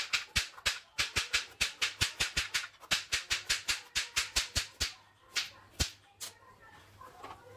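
Kitchen knife chopping a carrot into rounds on a plastic cutting board: a quick, even run of sharp knocks, about five a second, that stops about five seconds in, followed by three single knocks.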